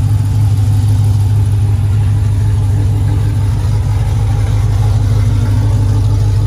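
Ram 1500's 5.7-litre Hemi V8, fitted with an aftermarket HPT performance camshaft, idling steadily with a loping, uneven idle from the cam.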